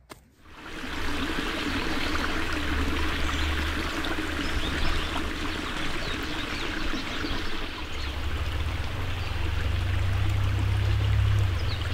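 Creek water running and trickling steadily, setting in about half a second in, with a low rumble underneath that grows stronger near the end.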